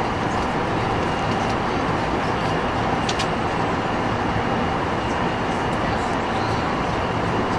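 Steady rush of engine and airflow noise inside the cabin of an Airbus A380-800 descending on approach, from its four Rolls-Royce Trent 900 engines and the air over the wing, with a faint steady whine.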